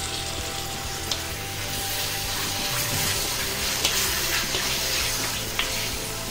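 Marinated chicken pieces sizzling in hot oil in a heavy black kadai as a wooden spatula stirs them, with a few scrapes and knocks against the pan.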